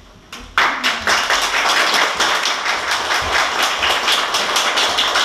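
Audience applauding, starting suddenly about half a second in and keeping up steadily.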